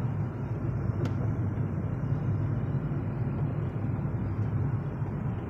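Steady in-cabin drone of a Hyundai Grand i10 Nios cruising at about 49 km/h, the hum of its freshly rebuilt petrol engine mixed with road noise. A single short click comes about a second in.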